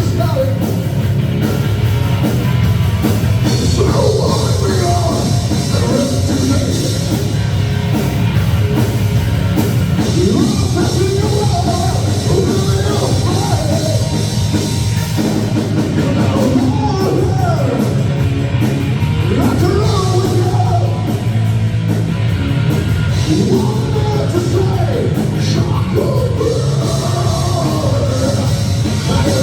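A rock band playing live and loud, with a drum kit and a wavering lead melody over a heavy low end.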